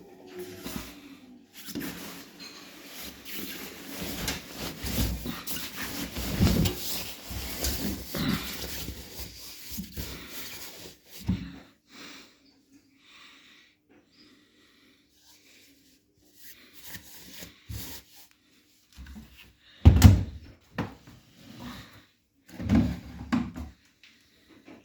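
Rustling and handling noise for about ten seconds, then a loud knock about twenty seconds in and a few more knocks near the end.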